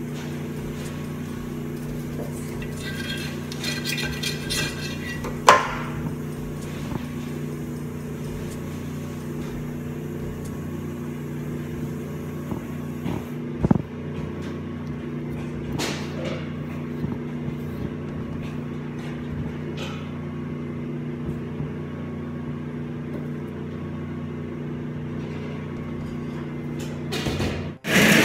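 Steady hum of commercial kitchen machinery, with a few sharp knocks and light taps from hands working a block of chocolate on a cake turntable, the loudest about five seconds in and again near the middle.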